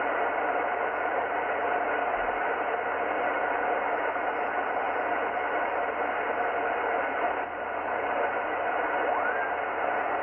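Yaesu FT-710 HF transceiver receiving on the 10-metre band in upper sideband: steady static hiss with no stations, as the dial is tuned down the band. A faint whistle rises in pitch near the end. The operator takes the empty band for the band having closed.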